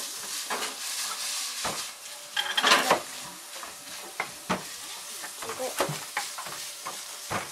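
Minced meat sizzling in a frying pan while a wooden spatula stirs and scrapes it, with scattered knocks and clatter. The loudest is a short burst of clatter and rustling about two and a half seconds in.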